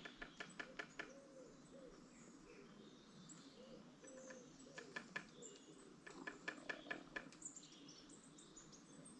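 Quiet woodland with faint birdsong: thin high chirps, loudest near the end, and soft low wavering calls. Runs of light, quick ticks or knocks come in the first second and again around the middle.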